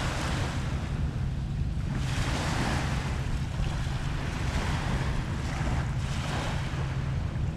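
Waves washing on the shore, the wash swelling and fading every couple of seconds, over a steady low rumble of wind on the microphone.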